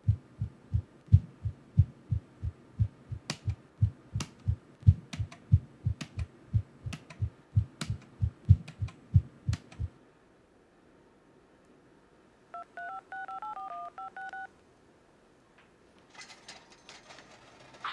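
A steady low thumping beat, about two or three thumps a second, for the first ten seconds. After a short pause, a phone keypad dials a number: a quick string of about ten short beeping tones.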